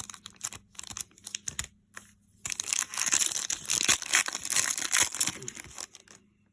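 A few light clicks, then a 2020 Donruss Football trading-card pack wrapper being torn open and crinkled for about three seconds.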